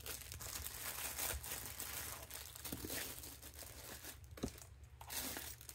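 Rustling and crinkling of packaging as rolls of craft vinyl are handled and set down, with a few light taps.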